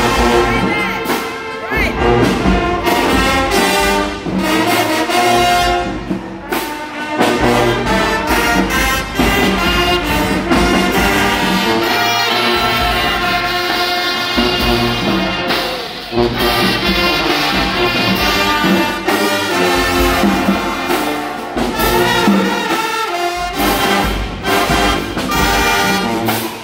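High school marching band playing a loud, brass-heavy tune: trumpets, trombones and sousaphones carry the melody over flutes, saxophones and a steady beat of drums and cymbals.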